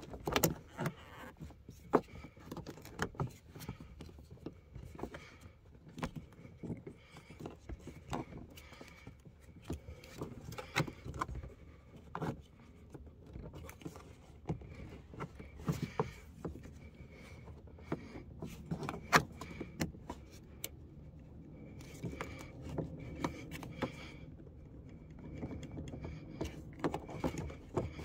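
Scattered, irregular clicks, taps and light scraping as a twisted seatbelt strap is worked with a nail file and fingers through its plastic shoulder guide loop to flatten the webbing.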